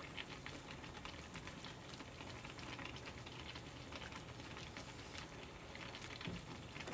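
Faint crackling and bubbling of orange chicken coated in sauce, still sizzling in the hot pan with the burner just turned off.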